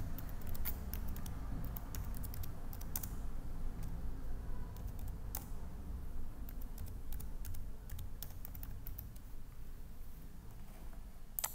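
Computer keyboard typing: irregular runs of key clicks as a short phrase is typed, over a low steady hum. One sharper click comes near the end.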